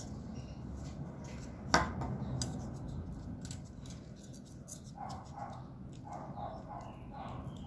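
Faint handling of an EVA foam strip being glued and rolled onto a wire, with one sharp tap about two seconds in. Later a dog barks faintly several times in quick succession.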